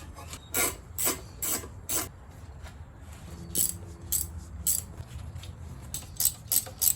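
Hand ratchet wrench working the intake manifold bolts loose on a Jeep 4.0L six-cylinder engine: short ratcheting strokes about twice a second, in bursts with pauses between them and a quicker run near the end.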